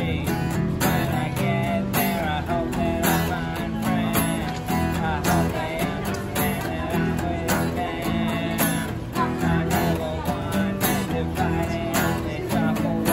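Acoustic guitar played live: a steady run of plucked and strummed chords.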